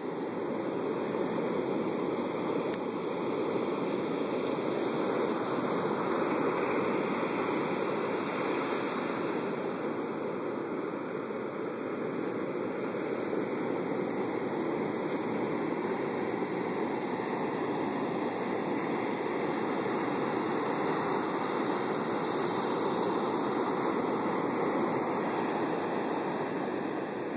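Heavy storm surf breaking offshore and washing up a sandy beach: a steady rush of water that swells and eases slightly.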